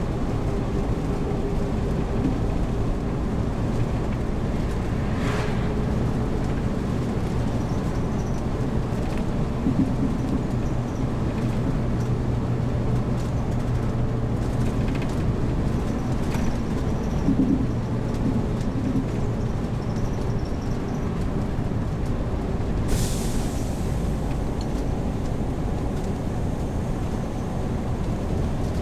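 Heavy-truck-based motorhome driving, its engine and road noise a continuous low rumble. About three-quarters of the way through there is one short hiss.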